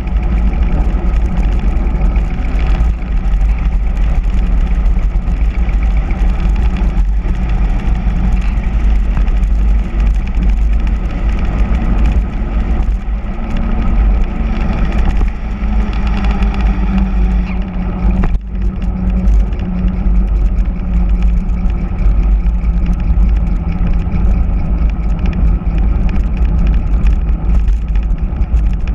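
Wind buffeting the microphone of a handlebar-mounted camera on a mountain bike descending fast, a loud steady rumbling rush, mixed with the hum of all-terrain tyres on asphalt.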